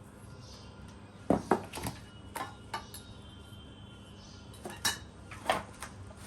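Hard parts of a height-adjustable laptop table clinking and knocking as they are handled, about nine sharp strikes in two clusters, one a little past a second in and one near the end.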